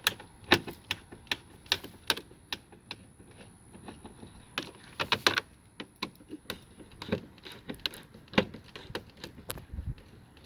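A hand tool clicking as screws are taken out of a car's door panel: sharp clicks about two or three a second at first, then sparser with a few close together about halfway through.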